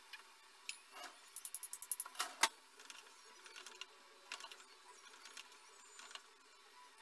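Kitchen knife chopping fresh green beans on a wooden cutting board: a quick run of about nine cuts a second and a half in, a louder knock just after, then fainter, slower cuts.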